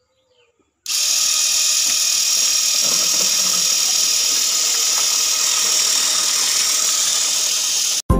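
Small battery-powered DC motor of a homemade PVC-pipe water pump switched on and running steadily at high speed, with water gushing from the pipe's outlet into a plastic tub. The sound starts suddenly just under a second in and cuts off suddenly near the end.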